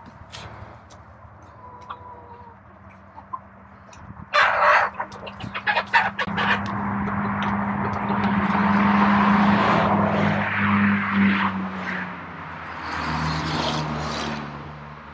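Backyard chickens clucking. About four seconds in comes a quick cluster of loud knocks and rattles, followed by a long steady noise that swells and fades, and a shorter swell near the end.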